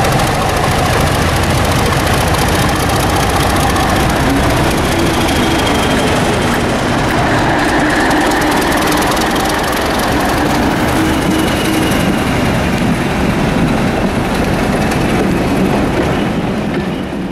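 Class 31 diesel locomotive's English Electric 12SVT V12 engine running as the loco pulls away and passes close by, its coaches then rolling past on the rails. The sound fades out near the end.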